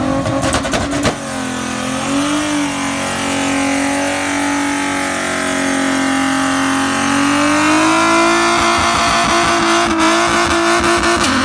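Nissan 300ZX's V6 engine held at high revs for many seconds, its note nearly steady, while the driver slips the clutch in place of a burnout. The pitch climbs a little about eight seconds in and drops off near the end.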